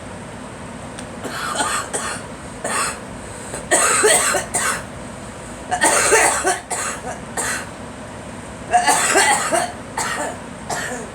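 A girl coughing in several fits of short, harsh coughs, a few seconds apart, over a steady background hum.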